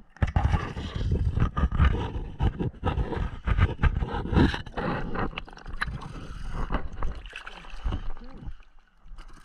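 Lake water sloshing and bubbling around a waterproof camera as it breaks the surface: a loud, churning rush with dense crackling that starts suddenly and eases off near the end.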